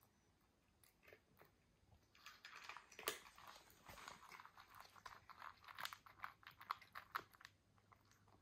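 Cats eating from their bowls: a quick run of crunching and chewing clicks that starts about two seconds in and thins out near the end.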